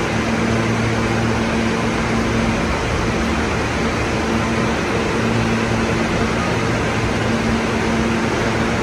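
A subway train approaching through the tunnel toward the station: a steady rumble with a low hum running under it.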